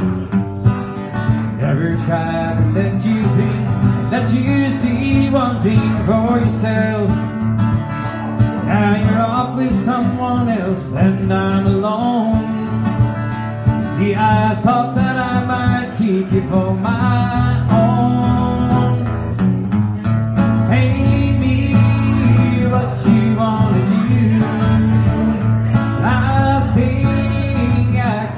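Live acoustic guitar strummed and picked, with a man singing over it in a solo song performance.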